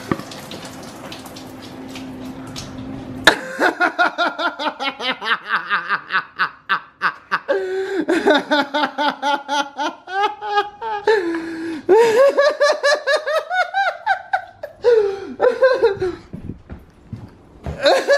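A person laughing hard: a long run of short, rapid 'ha' bursts that rise and fall in pitch. It starts about three seconds in, after a fading wash of noise.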